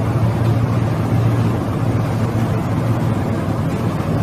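Steady low machine drone with a rushing noise over it, unchanging throughout.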